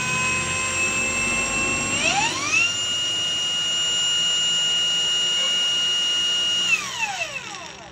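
Total 20V brushless cordless angle grinder running with no load: a steady whine at its low grinding speed that rises to a much higher pitch about two seconds in, as the motor steps up to its fast cutting speed, holds there, then falls away near the end as the grinder is switched off and spins down.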